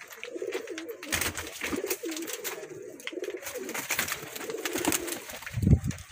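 Domestic pigeons cooing, a steady rolling murmur of overlapping coos, with scattered short taps. A dull thump comes about five and a half seconds in.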